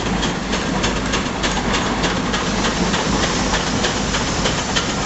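Case steam traction engine under way, its exhaust chuffing in an even rhythm of about three to four beats a second over a steady hiss of escaping steam.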